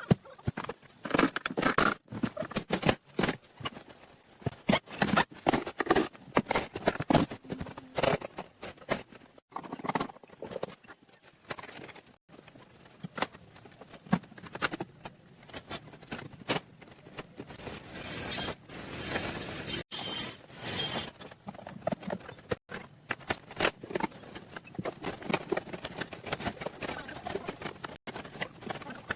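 Irregular knocks, taps and scraping sounds, many short sharp strikes in quick uneven succession.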